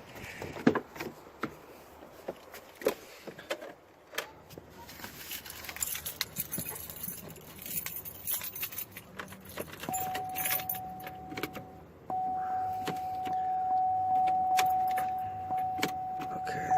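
Car keys jangling with clicks and rattles. About ten seconds in, a steady electronic warning tone from the car starts, breaks off briefly, then goes on.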